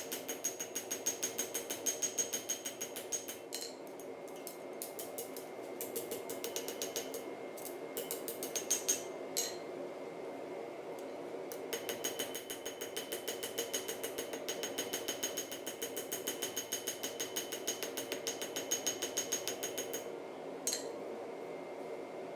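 Rapid, evenly spaced hammer blows on steel being forged, several a second, in two long runs with a stretch of scattered single blows between, over a steady background hum.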